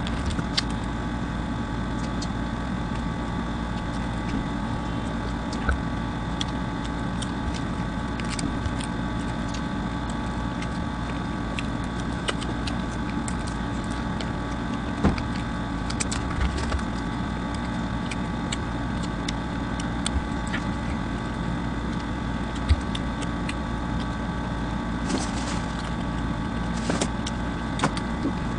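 A steady machine hum with several fixed tones runs throughout, under scattered soft clicks and crackles of flatbread being torn and pizza being chewed.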